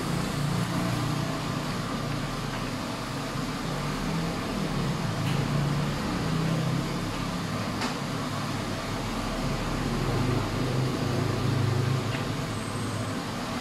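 A steady low rumble over a constant hiss, with two faint clicks midway.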